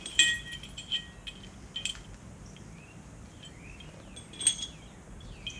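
Metal parts clinking together about five times, each clink ringing briefly, with faint bird chirps in the background.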